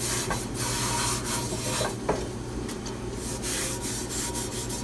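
A blue shop paper towel wiping over a Lodge heat-treated cast iron skillet, giving a dry scratchy rubbing in uneven strokes as the excess seasoning is wiped off before baking. There is a light knock about two seconds in.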